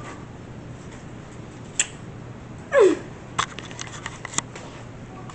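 Handling noise from a phone being moved about while filming: scattered sharp clicks and rubbing. About three seconds in comes a short falling tone, the loudest sound here.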